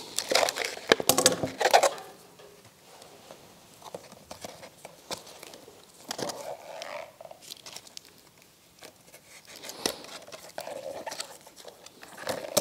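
Hands handling balloons and decorating pieces: crinkling and rustling with scattered clicks and taps, busiest in the first two seconds, then sparser.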